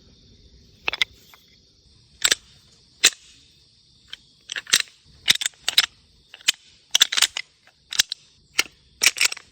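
Deer rattle bag worked in the hands, clacking sharply to imitate two bucks' antlers clashing: a few single clacks at first, then quicker clattering clusters from about halfway on. Crickets chirp steadily and faintly underneath.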